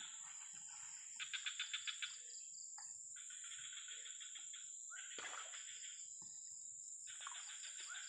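Faint chorus of insects and birds: a steady high whine throughout, with buzzy calls of about a second each repeating every second or two. The loudest call, a little over a second in, pulses about seven times a second. There is a single short knock about five seconds in.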